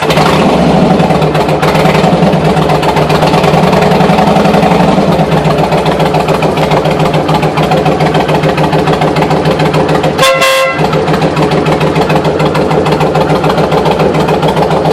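2007 Kawasaki Vulcan 1600's V-twin engine running steadily. About ten seconds in, a Stebel Nautilus air horn sounds one short blast of about half a second over the engine.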